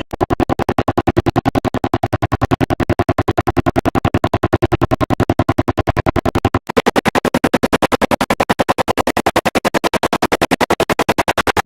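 Background music with a rapid, even stutter, roughly nine pulses a second, and a brief break about seven seconds in.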